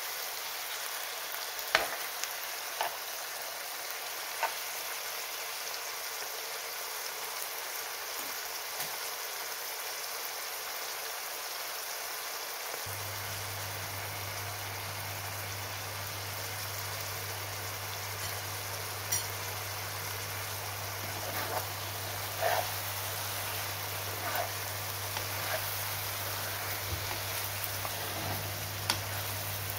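Lamb liver and onions sizzling in hot oil in a frying pan, with a spoon stirring and now and then clicking against the pan. A low steady hum starts about halfway through.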